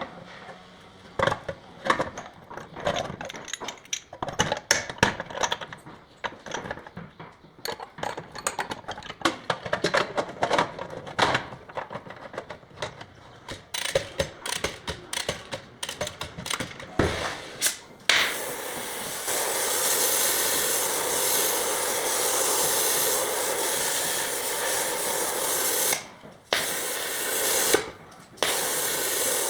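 Bodywork on a car: a long run of irregular light knocks and taps on metal, then, after about 18 seconds, a power tool running with a steady hiss that cuts out twice for a moment near the end.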